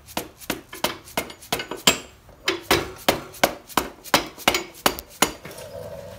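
Repeated metal-on-metal knocks, about three a second, as a half-inch steel rod is rapped against the end of a Harley-Davidson Road King's one-inch rear axle to drive it out. The knocks stop about five seconds in.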